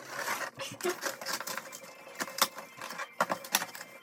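Cardboard shipping box being opened and handled: irregular clicks, scrapes and rustling of cardboard and packaging.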